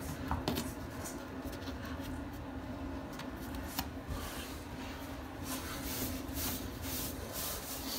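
Soft handling of pebble mosaic tiles, with a few light clicks of stone against stone as pieces are pressed into place, then a sponge rubbing over the pebbles for a couple of seconds near the end.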